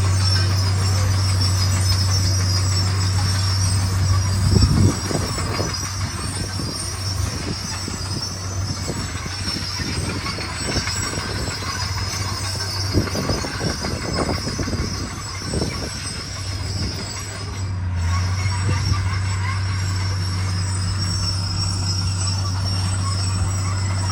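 Komatsu D41 crawler dozer working: its diesel engine runs with a steady low drone while the steel tracks squeal and clank. The clanks come irregularly, with the loudest about five seconds in.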